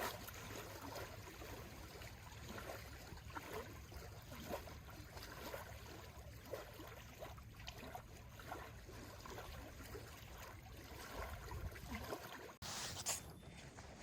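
Faint outdoor background: a low rumble of wind on the microphone with soft, scattered small ticks. The sound changes abruptly near the end.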